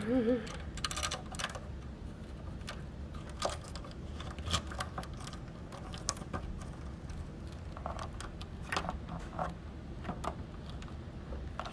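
Handling noise from a phone being picked up, turned and repositioned: irregular clicks, taps and rubbing right against its microphone.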